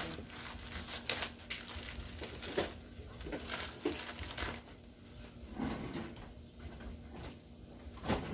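Kitchen handling noises: scattered light clicks, knocks and rustles as food, packaging and utensils are moved about on a counter.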